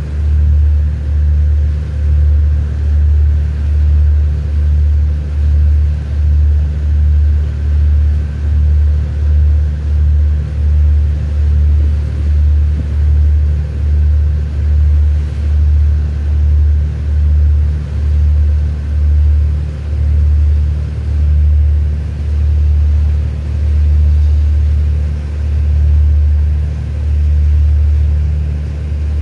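Marine engine running, a deep steady rumble that throbs evenly a little faster than once a second.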